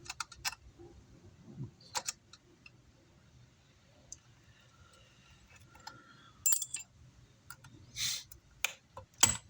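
Small metal tools and parts clinking and clicking as they are handled during disassembly of a car amplifier, a few separate strikes with a louder clink near the end.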